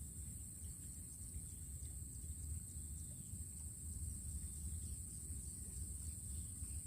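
Insects droning steadily in one high-pitched band, with faint ticking, over a low rumble.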